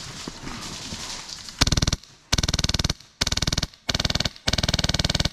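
Airsoft gun firing on full auto in five short bursts of rapid, evenly spaced shots, starting about a second and a half in.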